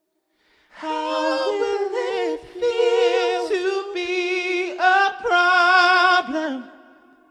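Several voices singing a cappella in harmony, beginning about a second in: held, wavering notes and a few sliding ones, in short phrases with brief breaks, fading out near the end.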